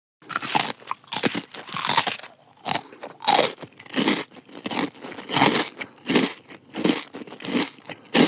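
A person chewing crunchy food close to the microphone: loud, evenly spaced crunches, about three every two seconds.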